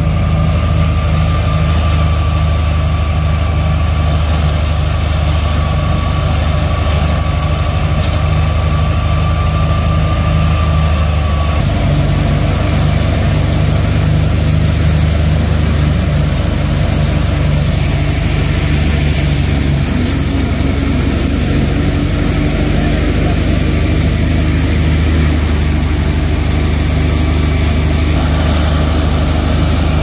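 Tractor-powered wheat thresher running steadily: a continuous low engine drone under the whir of the belt-driven threshing drum. A thin high whine sounds over it until about twelve seconds in, where the mix of the sound changes abruptly.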